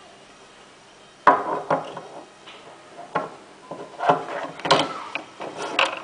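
Handling noise: irregular clicks, knocks and rubbing as a hand-held circuit board is moved about and its push buttons pressed, starting about a second in.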